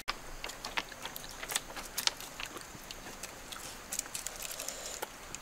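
Close-up eating sounds: roasted chicken pulled apart by hand and chewed, a run of small irregular clicks, smacks and crackles.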